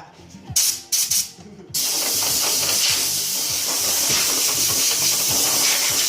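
Wood being sanded: a steady, even hiss of abrasive on wood that starts about a second and a half in, after a few short scraping noises.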